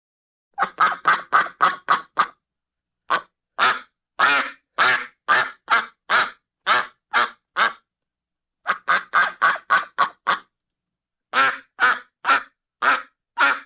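Duck quacking in runs of short, harsh quacks: a quick burst of about seven, then about ten slower quacks at roughly two a second, another quick burst of about seven, and a final few. The gaps between calls are completely silent.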